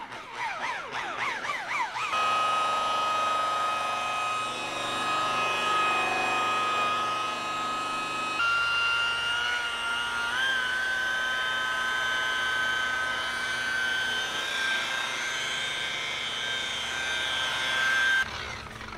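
Machine polisher with a wool pad running on a boat's gelcoat, cutting oxidation with compound: a steady motor whine that wavers at first, shifts pitch about eight seconds in and cuts off sharply near the end.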